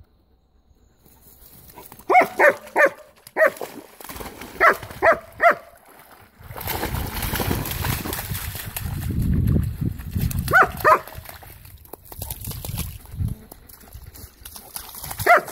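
A dog barking in quick bursts of about three short, high yaps, several times over. For several seconds in the middle, water sloshes and splashes as a dog runs through the shallow pond.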